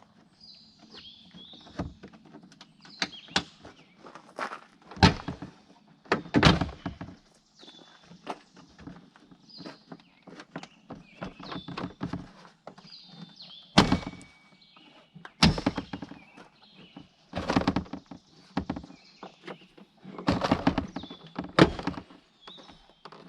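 Irregular thunks, knocks and clicks of hands and tools working on a pickup's rear door, several of them sharp and loud, over a faint steady low hum with short high chirps in the background.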